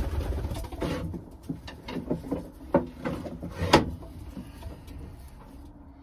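Handling noises in a wooden pigeon loft: a low rumble at first, then several sharp knocks and clicks as birds are put back and caught, with pigeons cooing faintly.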